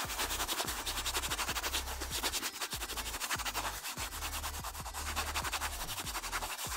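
Tap water running into a stainless steel kitchen sink while a sponge is rubbed and rinsed under the stream, a steady scrubbing, splashing noise that starts abruptly.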